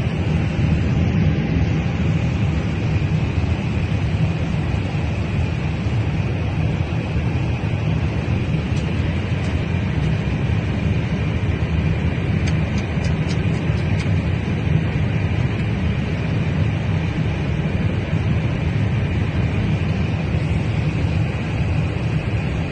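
Steady low rumble inside an airliner cabin, with a steady high whine above it, unchanging throughout.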